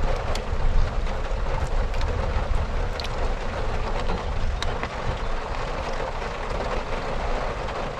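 Steady rain heard from inside a van with its door open: an even hiss over a low rumble, with a few faint ticks scattered through it.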